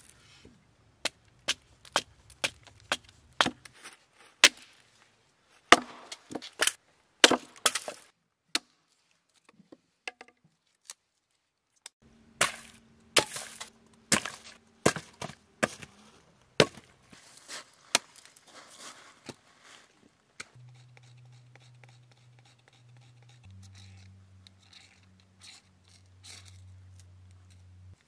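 Hatchet splitting a short log into kindling: a run of sharp wooden chops, a few seconds' pause, then more chops and split pieces knocking onto a woodpile. The last several seconds are much quieter, with only a faint low hum.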